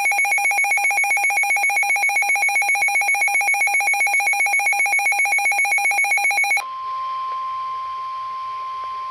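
Weather alert radio's alarm beeping rapidly and loudly, then about six and a half seconds in giving way to a single steady, quieter tone: the NOAA Weather Radio 1050 Hz warning alarm tone, which signals that a warning broadcast is about to follow.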